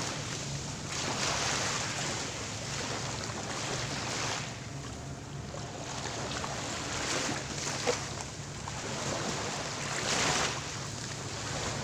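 Small sea waves washing up the sand and around rocks at the shoreline, coming in surges a few seconds apart, the strongest near the end.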